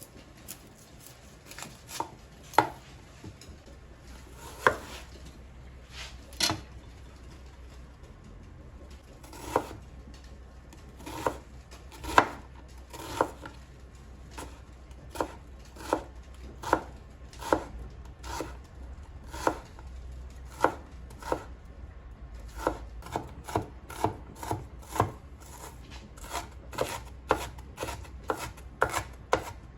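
Kitchen knife chopping on a cutting board: single sharp strikes, spaced out at first, then quicker and more even, about two a second, in the last third.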